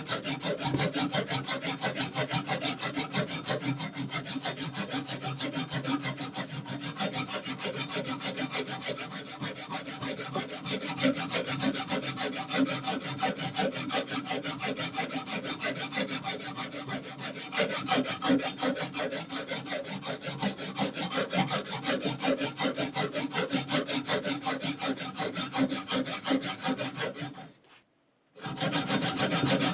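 Sharpening stone rasping along a knife's edge in quick, continuous back-and-forth strokes, breaking off for about a second near the end.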